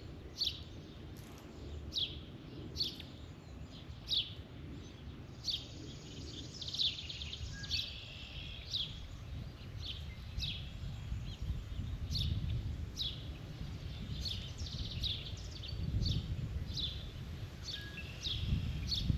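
A songbird gives short, sharp chirps that sweep downward, about one a second, with a few quicker runs in between, over a steady low rumble.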